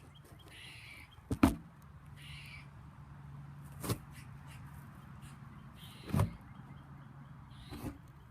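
Unexplained outdoor noise from an unseen animal: four sharp, brief sounds roughly two seconds apart, with short raspy calls between them.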